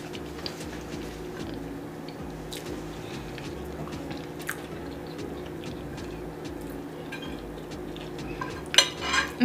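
Eating from a plate: faint chewing and occasional small clicks over a steady low hum, then cutlery clinking and scraping on the plate near the end.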